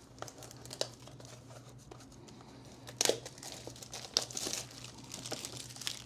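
Plastic shrink wrap being torn and crinkled off a box of Topps Tier One baseball cards, with scattered sharp crackles and rustles that grow busier from about three seconds in.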